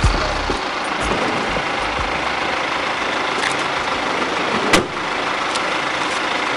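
Steady road-traffic noise, with one sharp knock about three-quarters of the way through.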